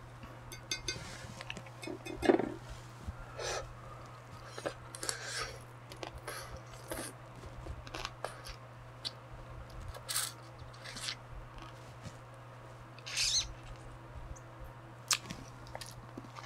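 Close-up eating sounds of marinated seafood: wet chewing, sucking and lip smacks, with light clicks of chopsticks against the dishes. The sounds come in scattered short bursts, the loudest about two seconds in.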